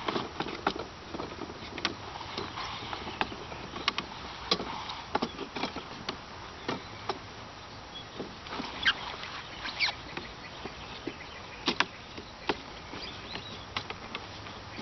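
Irregular light wooden clicks and knocks as the wooden roof poles of a small yurt frame are fitted into the wooden crown ring and the top of the lattice wall, over a steady background hiss.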